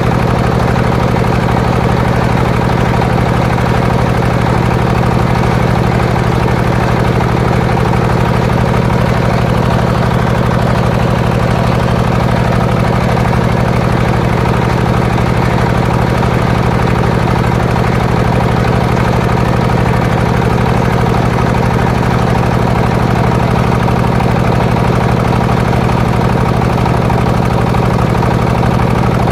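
Engine of a homemade circular sawmill rig running at a steady speed, a loud even drone with no change in load.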